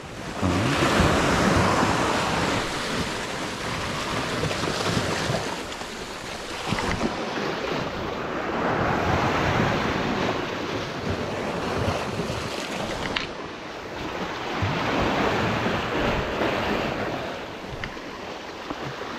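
Sea waves washing against a rocky shore, rising and falling in slow swells every several seconds, with wind buffeting the microphone.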